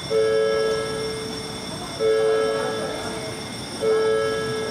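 An electronic two-note alert tone in a train station, sounding three times about two seconds apart. Each tone starts sharply and fades over about a second and a half, over steady background noise.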